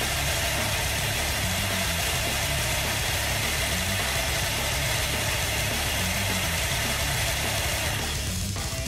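Motor-driven suspension test rig running with an RC buggy on its metal rollers: a steady mechanical running noise with a rumbling low hum that swells and fades as the car's oil-damped suspension is worked. The noise eases slightly near the end.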